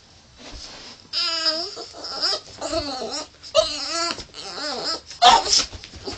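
Boston terrier howling and whining: a run of four drawn-out, wavering, yodel-like calls, followed near the end by a short, harsh, loud burst.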